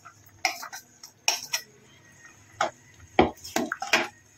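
Steel mixer-grinder jar and spoon knocking and scraping against the rim of an aluminium pressure cooker as ground masala paste is tipped and scraped in: a run of sharp, irregular clinks and taps.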